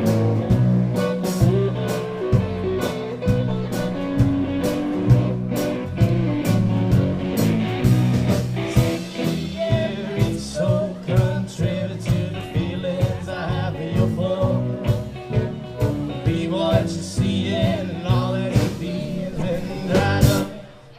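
Live blues band playing, guitar-led over bass and a steady drum beat, with singing in places. The band stops on a final hit near the end.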